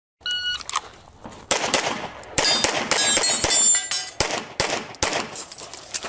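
A shot timer's short electronic start beep, then pistol shots fired in quick strings about a second later, with steel targets ringing as they are hit.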